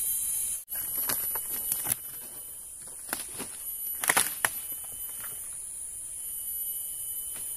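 Footsteps on dry branches and leaf litter, a scatter of sharp crackles and snaps, loudest about four seconds in, over a steady high buzz of insects.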